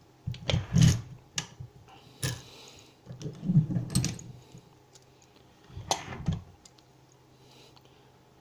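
Metallic clicks and rattles from lock picks working a small aluminium padlock, coming in irregular clusters that stop about six and a half seconds in.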